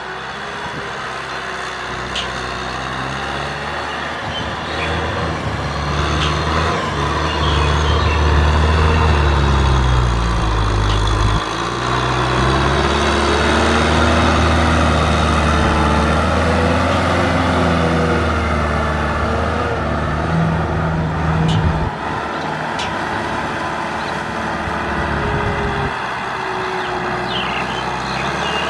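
Kubota M6040SU tractor's diesel engine working under load as it pulls a rotary tiller through wet rice-field soil. The engine note rises and falls in pitch, grows louder over the first several seconds, stays loudest through the middle and eases back about three quarters of the way through.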